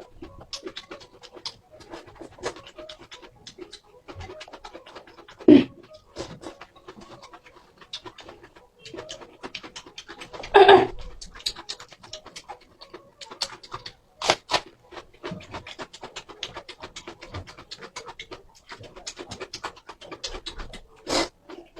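Noodles being slurped and chewed in fast-forward: a rapid, dense run of mouth clicks, smacks and slurps, with a few louder slurps.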